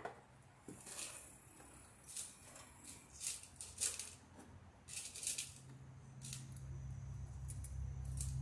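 Faint, scattered clicks and light rattles of small parts and tools being handled against house siding during electrical work. A low steady hum comes in a little past halfway and grows louder toward the end.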